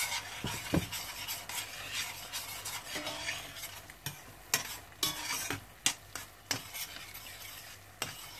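A metal spoon stirring chopped tomatoes and ketchup sautéing in a stainless steel pot, with repeated scrapes and clinks against the pot over a low sizzle.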